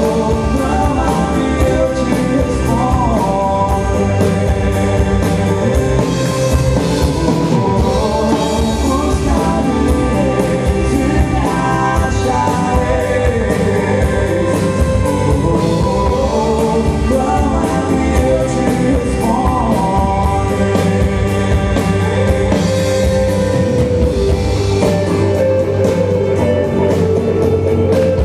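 Live worship band playing a rock-style song with drums, bass, guitars and keyboards, under sung vocals carrying the melody.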